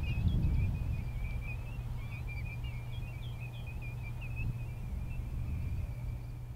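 A flock of birds calling in a continuous wavering chorus of high whistles, with a few sharper chirps, over a steady low rumble.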